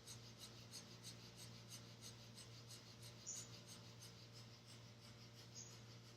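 Breath of fire: rapid, evenly paced, forceful breaths through the nose, faint, over a steady low hum.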